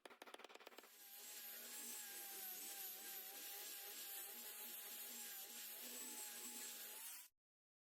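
An electric power tool's motor running with a steady whir and a slightly wavering whine, after about a second of fast, even ticking; the sound cuts off abruptly about seven seconds in.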